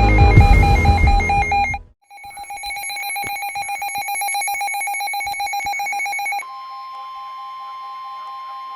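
Emergency Alert System alert sound: electronic music cuts off just under two seconds in, and after a brief silence a rapidly pulsing, ringing electronic tone plays for about four seconds. It then switches to a steady alert tone, quieter than the pulsing tone.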